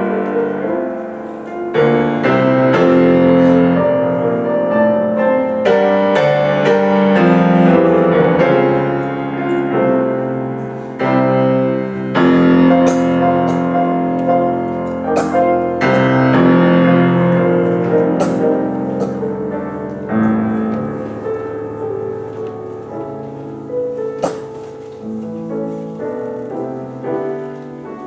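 Piano playing a hymn arrangement: struck chords and melody notes, some held and left to ring, with a few louder attacks.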